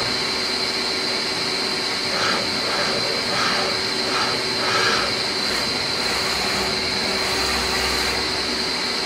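CNC lathe running, a steady high whine over a hiss, with a few short evenly spaced pulses a couple of seconds in.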